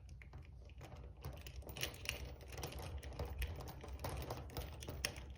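Lock pick and tension wrench working inside a padlock as it is picked: faint, irregular small metallic clicks and ticks.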